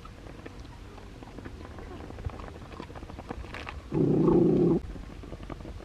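A single animal call lasting just under a second, about four seconds in, over faint ticking and rustling.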